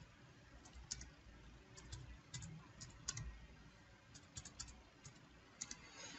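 Faint computer keyboard typing: irregular single keystrokes and a few quick clusters of taps.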